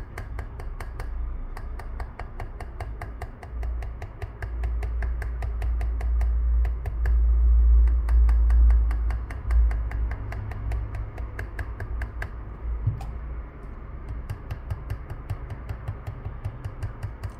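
Rapid, even ticking several times a second, over a low rumble of hands handling a metal screen-opening clamp that swells in the middle and fades again.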